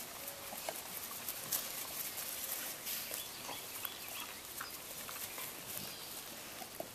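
Dogs chewing and gnawing on sticks in the grass, irregular small cracks and clicks, with a few faint high chirps.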